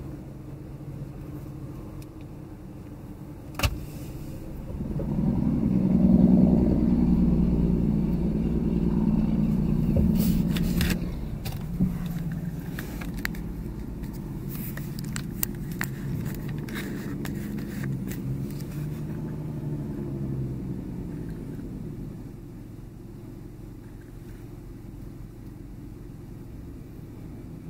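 A car driving slowly over a gravel lot, heard from inside the car. The engine rumble swells about five seconds in and eases off over the following seconds, with scattered clicks and pops.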